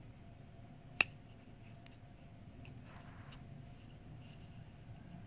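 Hands handling small leather Hermès bookmarks: one sharp click about a second in, then faint rustling, over a low steady room hum.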